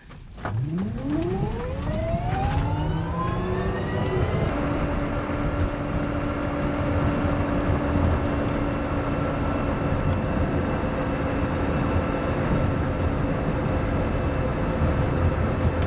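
Electric drive motor of a small four-wheeled Chinese light electric vehicle (E-DUR) whining as it accelerates up a steep hill. Its pitch rises for about four seconds, then holds steady over a low road and tyre rumble.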